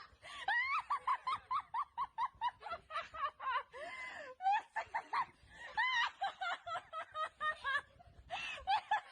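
A fast, high-pitched laughing-like vocalization: short pitched calls about four to five a second, in runs broken by brief pauses.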